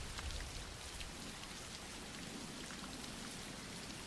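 Soft rain falling steadily, with scattered individual drops ticking.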